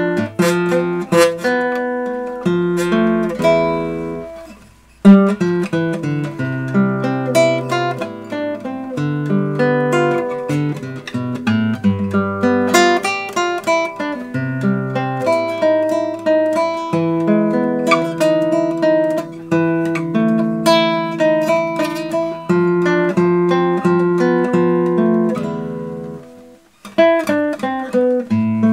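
Classical guitar played fingerstyle, a slow andante of plucked melody notes over bass notes and chords. The sound dies away twice, a little after four seconds and near the end, before the playing picks up again.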